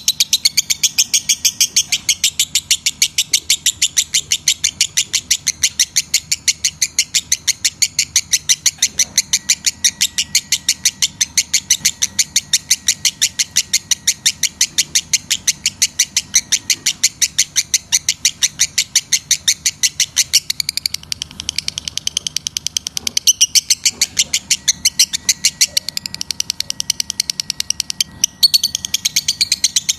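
Lovebird chirping in a long, fast run of shrill notes repeated evenly at about four a second, with a brief break near the end.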